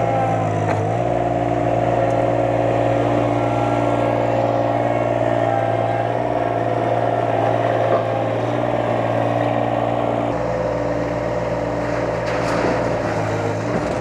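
A compact skid-steer loader's engine running steadily, its pitch stepping up and down as it works under load, with a couple of short knocks.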